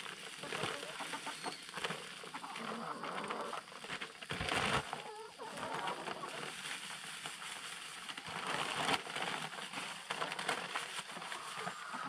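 Hens clucking softly close by, with a single low bump about four and a half seconds in.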